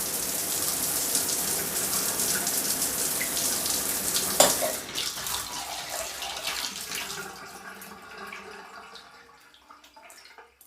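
Shower spray running steadily, then a sharp knock about four seconds in, after which the flow dies away into scattered drips that fade out by the end.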